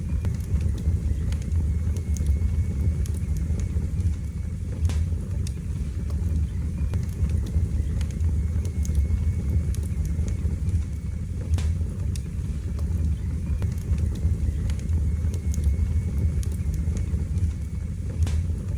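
Wood fire burning in a fireplace: a steady low rumble of flames with scattered sharp crackles and pops every few seconds.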